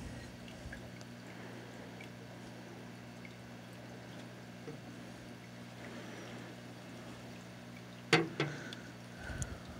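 A steady low hum with faint small clicks, then about eight seconds in two sharp knocks in quick succession and a couple of lighter taps near the end: metal feeding tongs knocking against a clear plastic enclosure.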